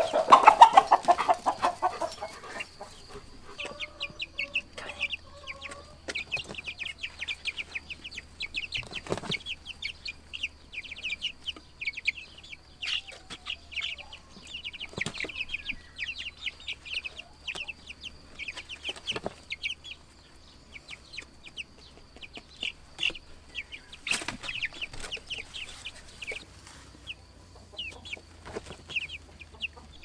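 Young chicks peeping: many short, rapid high chirps, on and off throughout. A louder, lower call sounds right at the start.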